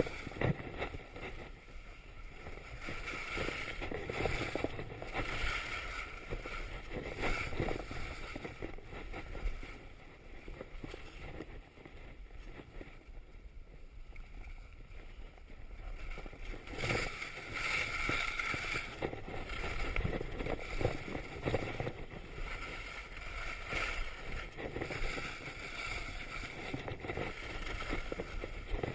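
Skis sliding and scraping over snow on a downhill run, the rush swelling and easing with each turn and dropping to a quieter glide for a few seconds midway.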